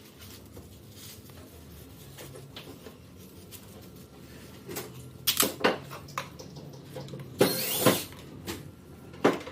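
Hands working a hose onto a fitting: a few knocks and clicks, then a short scraping rub near the end.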